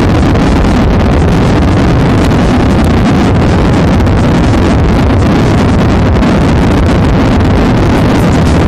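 Loud, steady airplane noise: a heavy, even rumble with a hiss above it.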